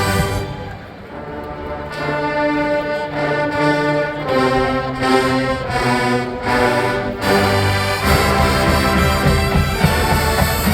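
College marching band's brass playing a loud fanfare-like passage. The sound dips briefly about a second in, then moves through a run of chords changing about every half second, and settles into a long held chord from about seven seconds in.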